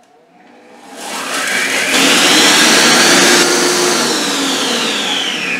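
Monsieur Cuisine Plus food processor running at top speed (speed 10), its blade grinding rolled oats into flour. The motor whine rises in pitch as it spins up over the first two seconds, then falls steadily as it slows toward the end.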